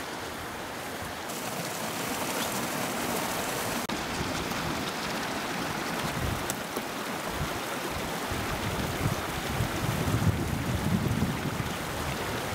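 Rushing water of the Prek Chu, a glacier-fed mountain river, heard as a steady hiss, with wind gusting on the microphone near the end.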